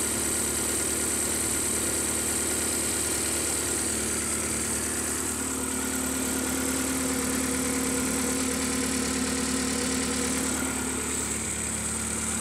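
Acura Integra's B18B1 1.8-litre DOHC four-cylinder idling steadily with the timing cover off, the cam pulleys and timing belt turning in the open, with a steady high whine over it.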